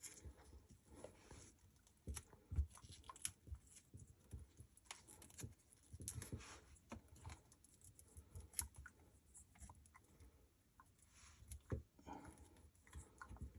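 Faint, scattered clicks and rustles of hands working on dishwasher wiring and parts.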